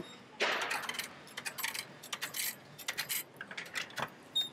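Drinks vending machine dispensing a can after a button press: a clunk and rattle as the can drops down the chute about half a second in, followed by a run of sharp metallic clinks and rattles. A sharp click near the end as the plastic flap of the dispensing bin is pushed open.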